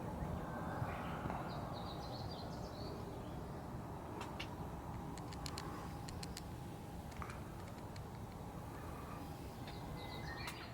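Birds chirping in short calls over steady low background noise, with a few light clicks around the middle.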